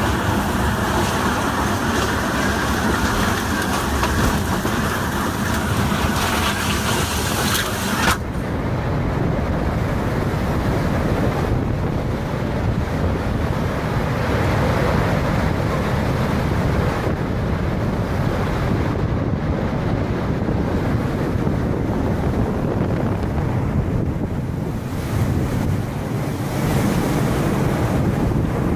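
Storm wind buffeting the microphone. For about the first eight seconds it is a loud, bright hiss; then an abrupt cut brings a deeper, rumbling wind noise that runs on steadily.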